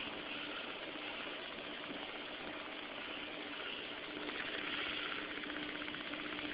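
Small computer-fan motor spinning a CD rotor, running with a steady whir and a low hum, and a fast, fine rattle that comes in about halfway through.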